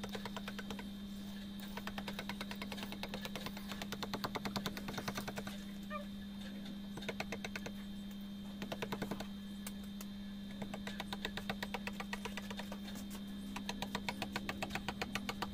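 Steel chisel tapped with a hand mallet, carving a natural-stone relief border: rapid light taps, several a second, in runs of a few seconds separated by short pauses.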